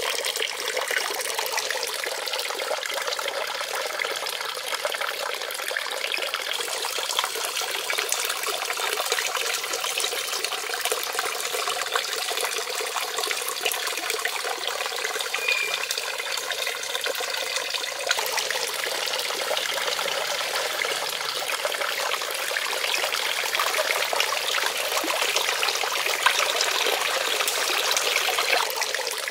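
Thin streams of water trickling steadily from the clay spouts into a shallow pond, splashing lightly on the water's surface; a little louder near the end.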